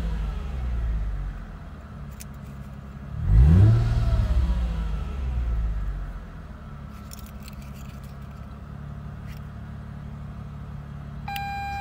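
Mercedes-Benz SL (R230) fitted with a custom valved all-titanium exhaust, heard from the cabin while standing in Park: the revs fall back, one sharp throttle blip about three seconds in rises and dies away, and the engine settles into a steady idle. A short electronic beep sounds near the end.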